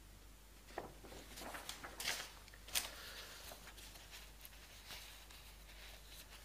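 Faint rustling with a few soft clicks, clustered between about one and three and a half seconds in, over quiet room tone.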